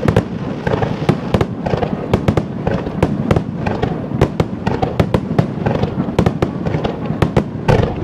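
Fireworks display: many shells bursting in quick succession, sharp bangs and crackles overlapping several times a second, with one louder bang near the end.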